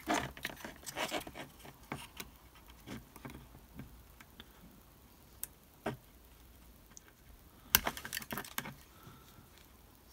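Small clicks, scrapes and taps as a hobby knife trims thin plastic square rod on a plastic-card model building, with a handful of sharper clicks about three-quarters of the way through.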